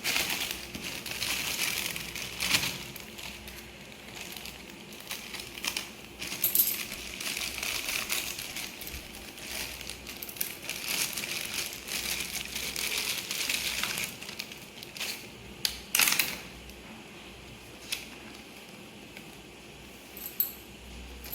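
Plastic packaging and the deflated PVC exercise ball being handled and unfolded: irregular rustling and crinkling with scattered clicks and knocks, the sharpest about sixteen seconds in.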